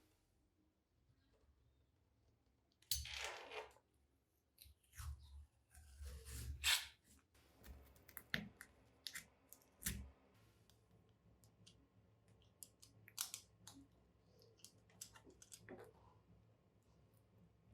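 Scattered small clicks and knocks, with two short scraping or hissing sounds about 3 and 6–7 seconds in: light handling of tools or parts.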